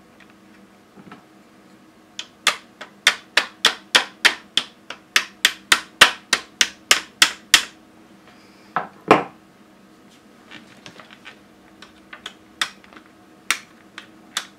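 An HP 12A-type laser toner cartridge being knocked hard again and again, about three sharp raps a second for five seconds, then two more knocks and a few lighter taps. The knocking shakes leftover toner out of the cartridge before it is refilled.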